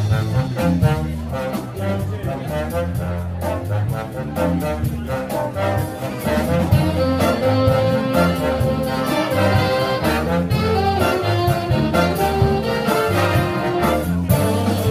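Big band jazz with a brass section of trumpets and trombones playing over a steady beat and a bass line.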